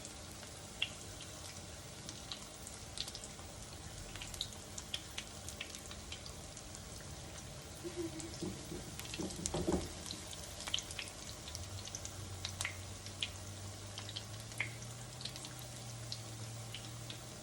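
Battered cauliflower pieces frying in hot oil in a skillet: a steady sizzle with frequent sharp crackles and pops, which come thicker for a moment about halfway through.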